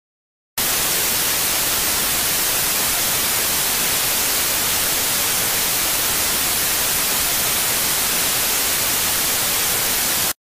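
Loud, steady TV static hiss, brightest in the treble, switching on abruptly about half a second in and cutting off just as abruptly near the end.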